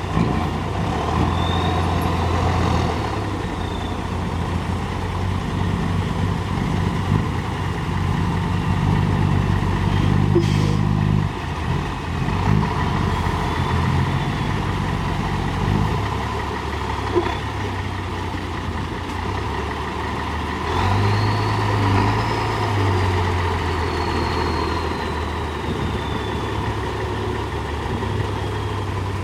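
Backhoe loader's diesel engine running and revving up several times under load, with a faint high whine that rises and falls.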